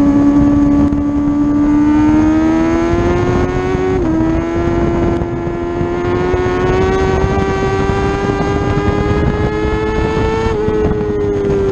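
Motorcycle engine pulling hard on track, its pitch climbing slowly through a long corner. There is a brief dip about four seconds in and another near the end, under steady wind rush.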